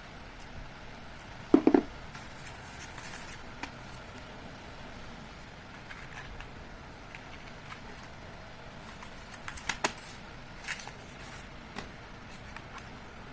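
Hard plastic and metal clicks and knocks from handling a Tokyo Marui MK23 spring airsoft pistol: a loud quick cluster of clicks about a second and a half in, another a little before the ten-second mark, and lighter single ticks in between.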